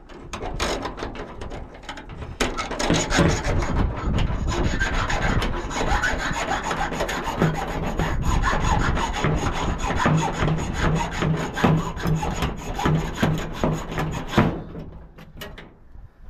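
Old rusty hacksaw cutting through the steel of a padlock, steady back-and-forth strokes of the blade rasping on metal, stopping shortly before the end.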